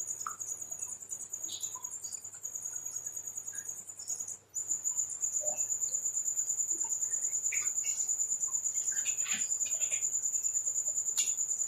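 Crickets chirping in a steady, rapidly pulsing high trill, broken by a momentary gap a little over four seconds in, with faint scattered chewing and mouth clicks underneath.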